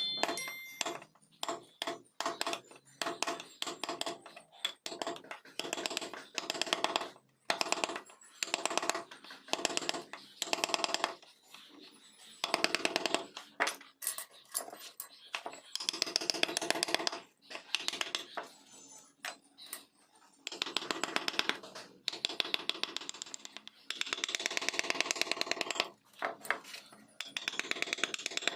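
Carving tool cutting into wood in repeated bursts of fast, even chattering clicks, each burst lasting a second or two with short pauses between strokes.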